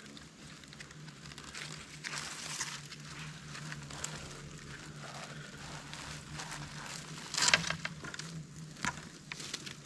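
Irregular rustling and crackling, as of things being handled or brushed against, with a louder burst of crackles about three-quarters of the way through, over a faint steady low hum.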